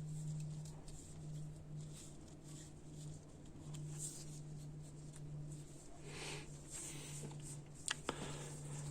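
Faint handling of small transmission parts: light rustling and ticking over a steady low hum, with a sharp click about 8 seconds in.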